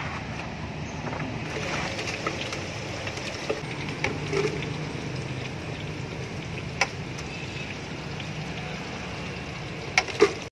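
A steady hiss with a few light, sharp clicks of a plastic spoon against plastic cups as seasoning powder is spooned out, two of them close together near the end.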